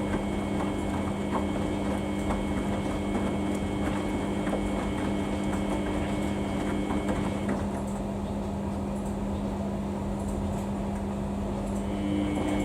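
Samsung washing machine running a Daily 40 wash, with a steady low hum and a higher motor whine. The whine stops about seven and a half seconds in and comes back near the end, with scattered light clicks throughout.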